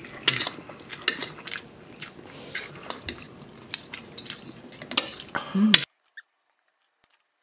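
Eating at the table: utensils clicking and scraping against a bowl or plate in short, irregular strokes. The sound cuts off suddenly about six seconds in.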